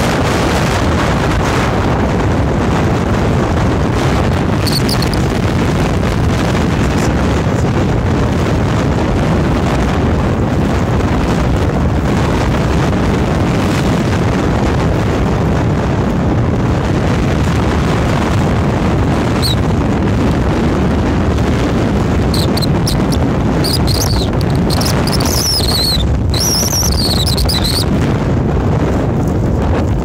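Strong mountain wind blasting across the microphone: a loud, steady roar of wind noise with no let-up.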